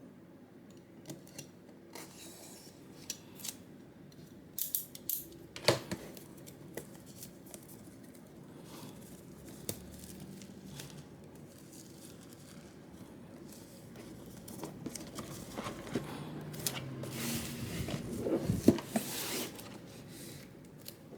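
Unboxing handling sounds: scattered small clicks and knocks as the keyboard's packaging is opened and handled, with a longer rustle of packaging near the end.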